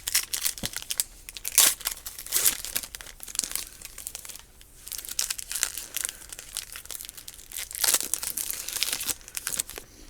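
Trading-card pack wrapper crinkling and tearing as the pack is opened, in irregular crackling bursts, loudest about a second and a half in and again around eight seconds in.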